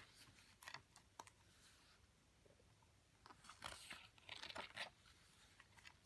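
Faint handling of paper: a couple of soft clicks, then two short bursts of rustling a few seconds in, as glossy album pages or photo cards are turned over.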